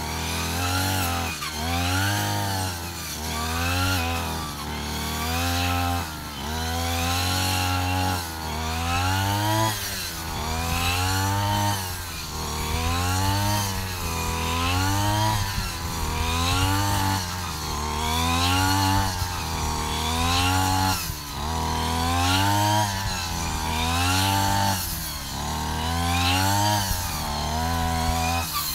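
Backpack petrol brush cutter cutting grass, its engine revving up and easing off about once a second as the cutting head is swept back and forth.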